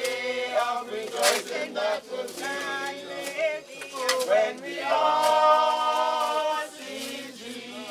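A group of people singing a hymn together, several voices holding a long note about five seconds in.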